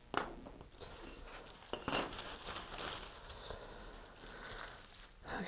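Thin plastic parachute sheet rustling and crinkling as it is handled and pressed flat, with a few sharper taps and clicks; the loudest come just after the start and about two seconds in.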